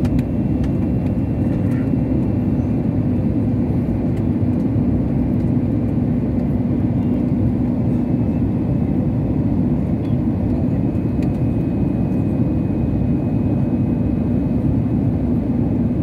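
Jet airliner cabin noise during the approach descent: steady engine and airflow noise with a low hum, heard from a window seat beside the engine.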